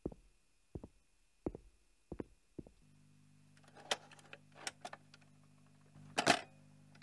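Evenly paced knocks, about one every 0.7 seconds, stop about three seconds in. A steady low hum then starts, with a few rustling clatters and one louder clunk a little after six seconds.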